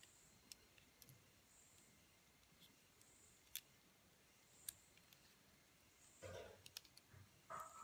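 Faint clicks and light plastic handling noise as a SIM card is pushed into the SIM slot of a JioFi 2 pocket Wi‑Fi hotspot. The sound is otherwise near silence, with two small sharp clicks in the middle and a brief rustle near the end.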